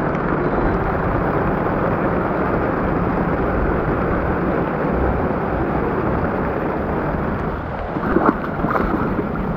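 Heavy rain pouring in a steady downpour. About eight seconds in come a few splashing footsteps through ankle-deep floodwater.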